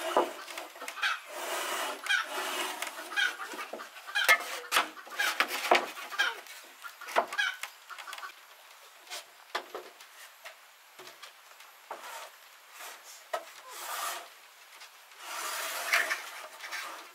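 Domestic chickens clucking, with scattered sharp knocks and a stretch of scraping near the end.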